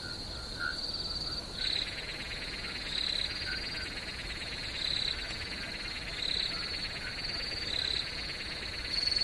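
Night chorus of crickets and frogs: a steady high cricket trill, joined about a second and a half in by a dense pulsing chorus, with a louder short call repeating about every second and a half.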